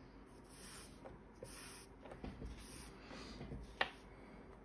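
Faint rubbing and rustling of 3 mm cotton cord being handled and drawn through crocheted stitches, with a few soft ticks and one sharper click nearly four seconds in.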